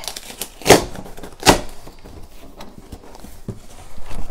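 A cardboard shipping box being handled and opened, with rustling, scraping and small clicks. There are two loud scraping strokes about a second in, under a second apart, and more rustling near the end, picked up close on a clip-on microphone.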